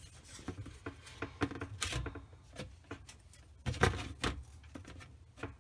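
Light, irregular taps and scrapes of an applicator working two-part epoxy into a hole in the bottom of a Kenmore dishwasher's tub, with a short run of louder knocks about four seconds in.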